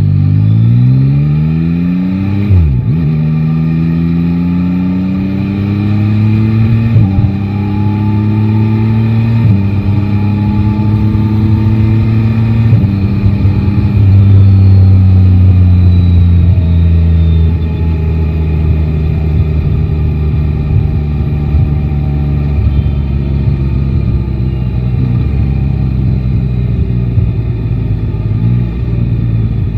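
Yamaha Tracer 9 GT's 890 cc three-cylinder engine accelerating through the gears. The revs rise and drop at four upshifts in the first thirteen seconds, then the bike settles into a cruise with the revs slowly easing off.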